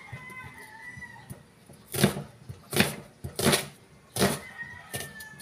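Cleaver chopping through a white onion onto a plastic cutting board: about five sharp knocks, roughly one every 0.7 s, starting about two seconds in.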